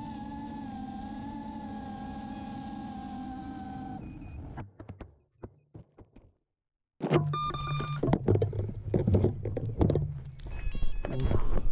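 FPV racing quad's brushless motors (Racerstar 2306 2400kv) whining steadily in flight, cutting out about four seconds in as the quad crashes and flips over. After a few scattered ticks and a short silence, the quad's beeper sounds repeated high beeps amid loud noise.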